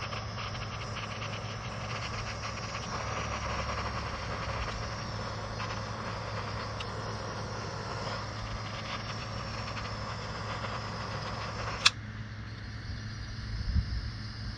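Small handheld torch burning with a steady hissing flame, shrinking heat-shrink tubing over spliced wires; it stops with a sharp click about twelve seconds in.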